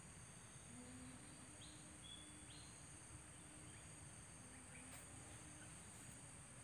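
Near silence: faint outdoor ambience with a steady high-pitched insect drone, like crickets, and a few faint short chirps about two seconds in.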